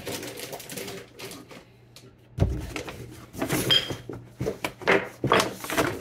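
Brown paper grocery bag rustling and crinkling as items are pulled out of it by hand, with a thump about two and a half seconds in and a string of sharp crinkles and knocks over the last few seconds.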